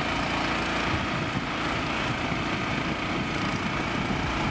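Engine of a small wooden motorboat running steadily under way, with wind and water rushing past the hull.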